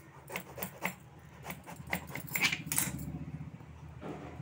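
Kitchen knife cutting lengthwise through a peeled bottle gourd on a plastic chopping board, the firm flesh splitting with crisp crackles and snaps that are densest about halfway through. Glass bangles on the cutting wrist jingle along with it.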